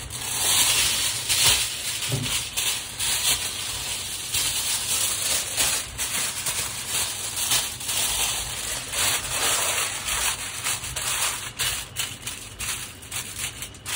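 Dry rice grains rattling and rustling continuously, as they are shaken or stirred in a pot or basin.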